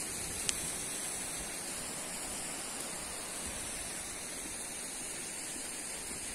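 Steady rushing hiss of the river flowing in the valley below, even and unbroken. A single sharp click about half a second in.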